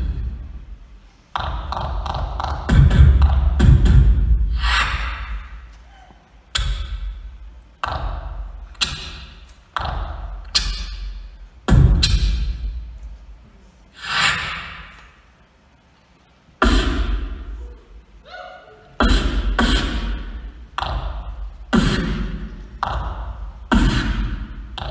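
Solo beatboxer performing into a handheld microphone, amplified: deep bass kicks with long decays alternating with sharp snare and hi-hat sounds, and a brief pause about fifteen seconds in.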